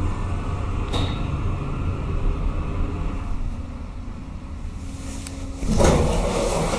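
Steady low rumble inside a hydraulic lift car, with a louder rushing noise starting suddenly near the end.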